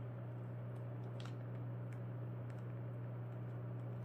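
Steady low hum with a few faint, short clicks.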